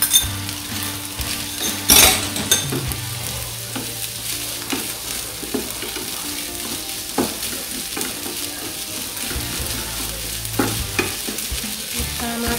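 Fried rice and freshly added egg sizzling in a frying pan while a wooden spatula stirs and scrapes it, knocking against the pan a few times; the loudest knock comes about two seconds in.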